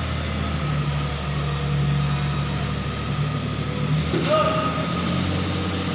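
Engine of a small vehicle running steadily with a low, even hum.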